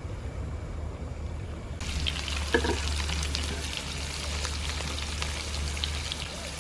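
Shrimp, garlic and vegetables sizzling and crackling in hot oil on a griddle pan, starting about two seconds in. A single sharp knock sounds about halfway through.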